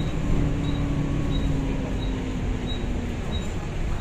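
Volvo B9TL double-decker bus on the move, heard inside the lower deck: the Volvo D9A diesel engine and Voith DIWA automatic gearbox give a steady low drone with a faint whine that slowly falls in pitch and fades near the end. A faint high tick repeats about every two-thirds of a second.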